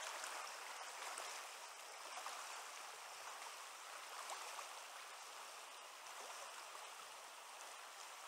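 Fast, high trout river current running over rocks and riffles, a steady, even hiss of moving water.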